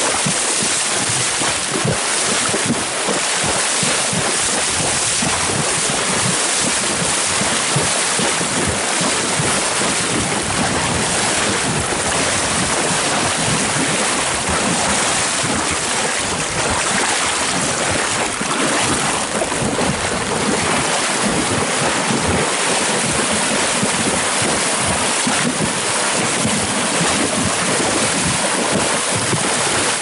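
Horses wading through a shallow creek, their legs churning and splashing the water in a steady rush.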